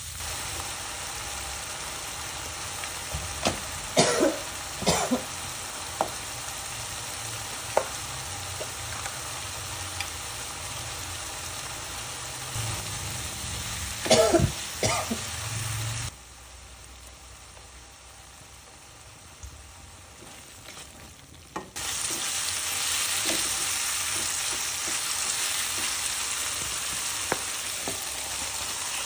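Ground chilli-and-shallot spice paste sizzling in oil in a pan while a spatula stirs it, scraping and clacking against the pan a few times. The sizzle drops quieter for a few seconds past the middle, then comes back louder.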